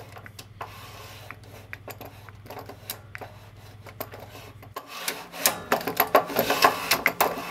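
Mini lathe's metal tailstock sliding along the bed ways, metal scraping and rubbing on metal. The scraping gets louder and more rattly in the last couple of seconds. A low steady hum runs underneath and stops after about four and a half seconds.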